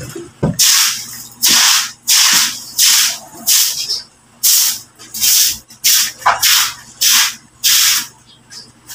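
A broom sweeping water across wet concrete: about a dozen quick swishing strokes in a steady rhythm, roughly one every three-quarters of a second, stopping shortly before the end.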